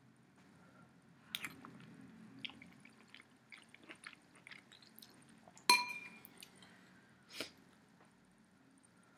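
Spoon clinking against a soup bowl: scattered light taps, with one louder, ringing clink a little past halfway.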